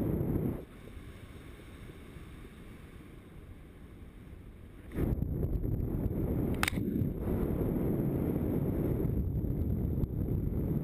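Wind buffeting the microphone of a camera on a flying paraglider: a short loud gust at the start, a few quieter seconds, then a steady heavy rumble from about five seconds in, with one brief click in the middle of it.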